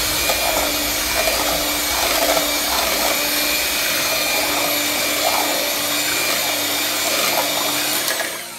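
Electric hand mixer running steadily, its beaters churning a thin liquid ice cream mixture in a steel pot; the motor dies away near the end.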